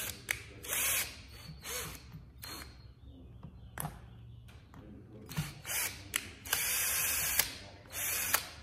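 A cordless drill with a Phillips bit turning a self-tapping screw in a car armrest. It runs in about eight short bursts with pauses between, the longest nearly a second, near the end.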